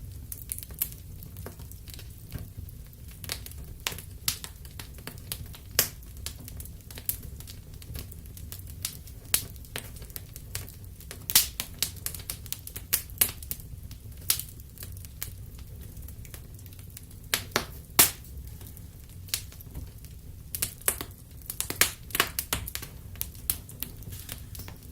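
Wood fire burning in a fireplace: irregular sharp crackles and pops, a few louder snaps among them, over a steady low rumble of the flames.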